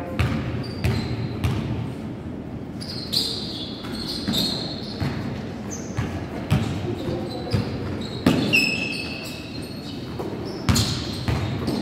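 Basketball bouncing on a gym floor, three bounces about two-thirds of a second apart in the first couple of seconds as a player dribbles before a free throw. Later come short high squeaks of sneakers on the court and further ball thuds as play runs on.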